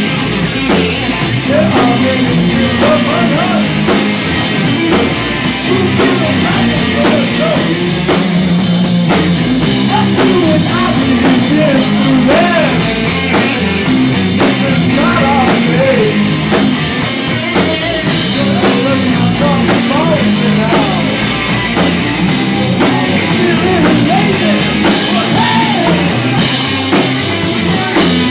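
Live rock band playing an instrumental passage: drums, bass and electric guitar, with a lead line of bending notes over the band and no vocals.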